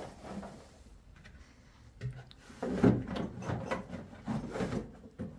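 Rustling and scraping as a cloth sack is pulled open and its contents handled, in a run of short bursts through the second half.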